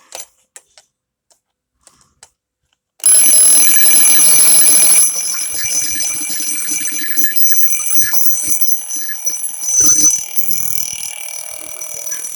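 A Huari twin-bell alarm clock's alarm ringing loudly, its bells hammered in a continuous ring that starts suddenly about 3 seconds in and eases slightly after a couple of seconds. A few light clicks come before it as the clock is set.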